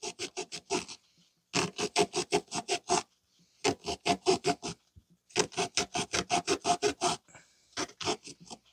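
Milwaukee reciprocating saw cutting through the thin steel can of an oil filter, rasping at about six strokes a second in five short runs with brief pauses between them.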